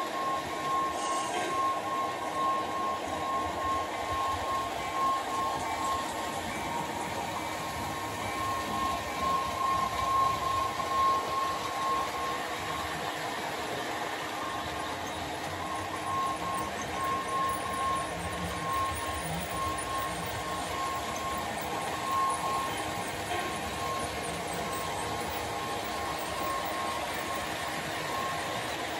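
Model freight train rolling past on the layout track: a steady rolling rumble from the cars' wheels, with a thin pulsing whine.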